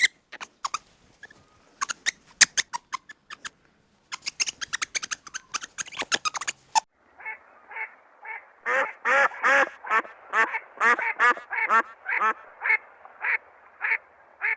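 A string of sharp clicks or taps, then a duck quacking over and over, about three quacks a second, in the second half.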